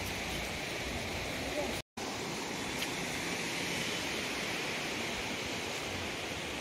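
Steady rushing noise of water, even and unbroken except for a brief dropout about two seconds in.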